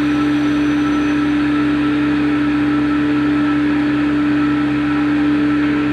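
CNC machine running steadily, its spindle giving one constant high hum over an even mechanical whir.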